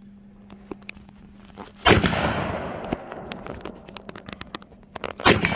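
AR-15 rifle with a side-charging upper firing two single shots about three and a half seconds apart, each crack followed by a long echo that dies away.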